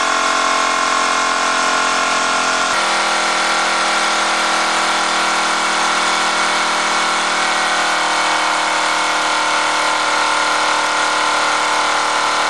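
Wilesco D222 toy live steam engine running fast under load, belt-driving a small Jensen dynamo: a steady whirring hum with hiss. The tone shifts slightly about three seconds in.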